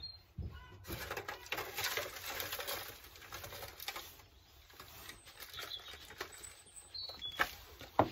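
Multi-purpose compost being scooped and poured into a plastic cell tray, rustling and pattering, with two sharp knocks near the end. A few short bird chirps sound now and then.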